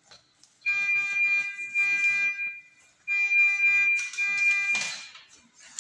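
Medical equipment alarm sounding two long, steady electronic tones of about two seconds each, with a short gap between them. A brief rustling burst comes near the end.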